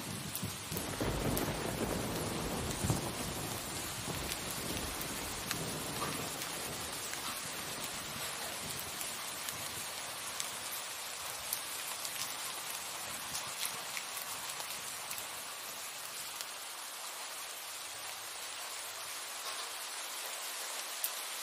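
Steady rain falling, with a roll of thunder rumbling low in the first few seconds and slowly dying away.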